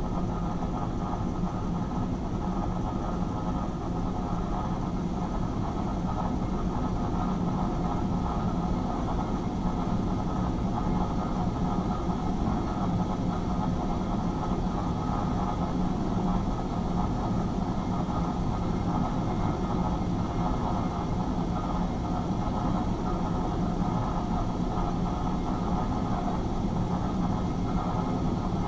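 A steady, low rumbling drone with no rhythm or breaks, an ambient soundscape played through the theatre's speakers.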